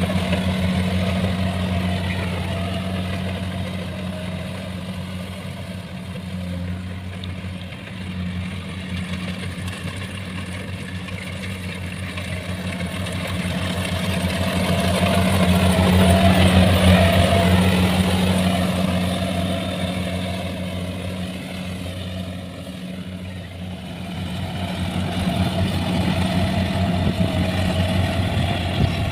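Rice combine harvester running under load while cutting and threshing: a steady engine hum with machinery noise that swells louder around the middle.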